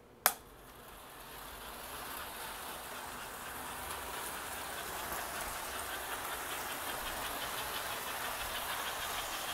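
A sharp click, then an American Flyer 343 0-8-0 toy steam locomotive with its Pullmor motor starts running on the track. Its running sound builds over the first few seconds into a steady hum and rattle, with a fast rhythmic ticking.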